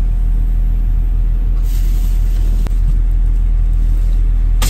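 Loud, steady low rumble, with a single sharp click a little past halfway.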